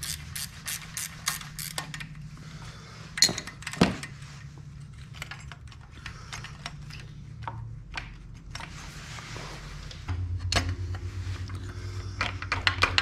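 Scattered small metal clicks and clinks of hand tools and governor linkage parts being worked on a Briggs & Stratton V-twin lawn tractor engine, with a short squeak about four seconds in. A low steady hum comes in about ten seconds in.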